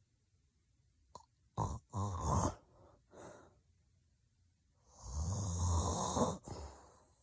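A woman snoring heavily in her sleep. A loud snore comes about a second and a half in, then a softer breath around three seconds, then a long, loud, low snore from about five seconds.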